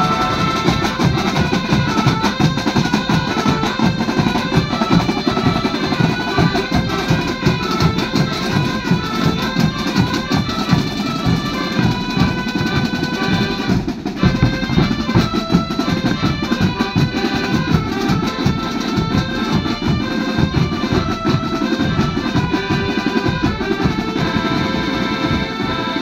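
Marching drum band playing: massed bass and snare drums beat a fast, steady rhythm under a melody played on wind instruments.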